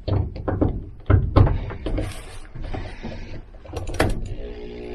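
Irregular metallic clicks and knocks from a drill and a homemade plusnut-setting tool (screw, wrench and angle bracket) against a van's sheet-metal wall, with a sharper click about four seconds in. The drill motor starts to run right at the end as it begins turning the screw to set the plusnut.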